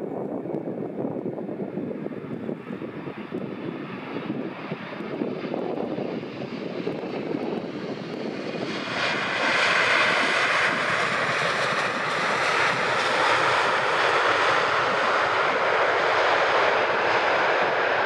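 Boeing 777 airliner landing, its GE90 jet engines heard as a low rumble that turns suddenly into a louder, hissier rushing noise about nine seconds in and stays loud through the rollout.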